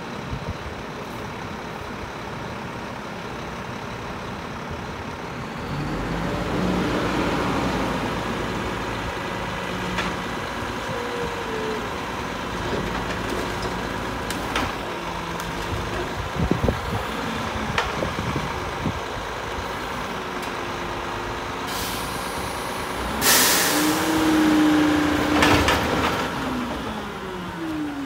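Mack LEU garbage truck's engine revving to drive the hydraulics as the front-mounted can is raised over the cab and dumped, with clunks and knocks in the middle. Near the end there is a loud burst of air hiss while the engine revs up again.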